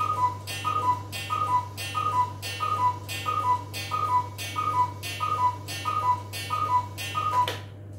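Cuckoo clock calling the hour: a falling two-note "cuc-koo" from its bellows pipes, each call with a short breathy puff, repeated evenly about a dozen times, roughly one every two-thirds of a second, then stopping near the end.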